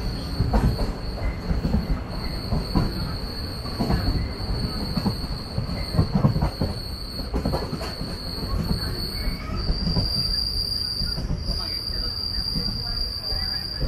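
Ernad Express train wheels running on steel rails with a steady, high-pitched squeal over a rumble and irregular clacks of the wheels. The squeal steps slightly higher about ten seconds in.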